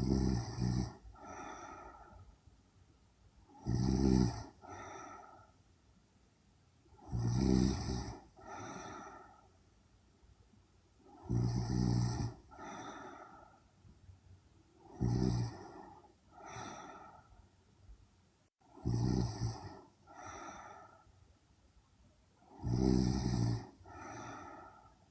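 A young woman snoring in her sleep: seven snores at an even pace, about one every four seconds, each followed about a second later by a softer breath.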